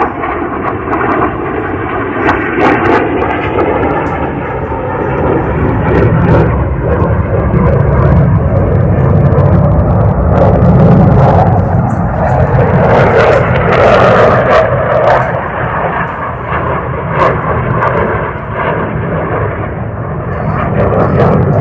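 A loud, continuous mechanical noise that swells around the middle and eases later on, with a few short clicks over it.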